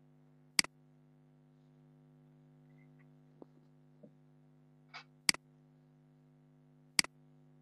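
Three sharp computer mouse clicks: one about half a second in, one a little past five seconds and one about two seconds later, over a steady low hum.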